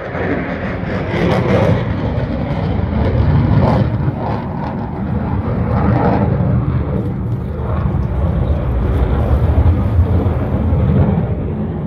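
Aircraft flying overhead: a loud, steady low rumble of engine noise that swells up at the very start and holds.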